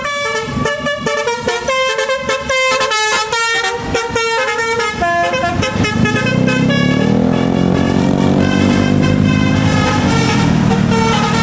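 Bus 'telolet basuri' multi-tone air horn playing a quick tune of stepped notes. About halfway through, the passing bus's engine grows louder and becomes the main sound, with fainter horn notes still sounding over it.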